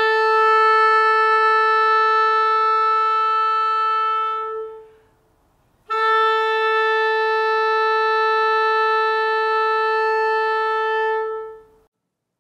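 Clarinet playing two long held notes at the same pitch, about five seconds each with a short break between. It is played with the bell on and strong diaphragm breath support, to give a bigger, fuller tone.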